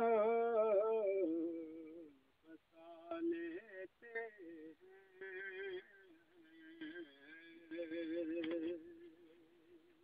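A man's solo voice singing a naat, an Urdu/Punjabi devotional poem, in long ornamented phrases with a wavering vibrato on the held notes and short pauses between them, unaccompanied. A long held note fades out in the first two seconds, then softer phrases follow.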